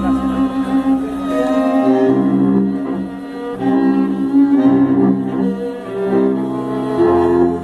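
Tango sextet playing live, with bowed strings carrying a melody of long held notes over double bass and bandoneón.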